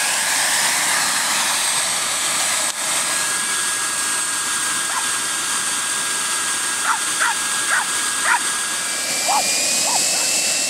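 Kolibri micro jet turbine running on the ground with a steady high-pitched whine and hiss, its whine rising slightly near the end. About halfway through, a small dog barks or yaps several times over it.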